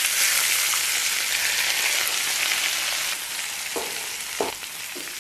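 Scalding hot oil sizzling as it is poured onto chili flakes, minced garlic, sesame seeds and soy sauce in a stainless steel bowl. A loud hiss that eases about three seconds in, with a few pops near the end.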